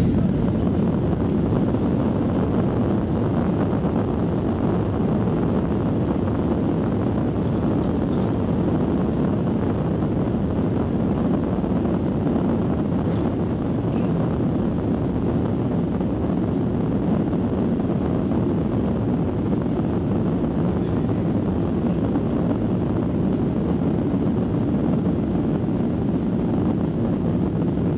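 Cabin noise of a Boeing 737-800 on its take-off roll: the jet engines at take-off power and the wheels running on the runway make a loud, steady din.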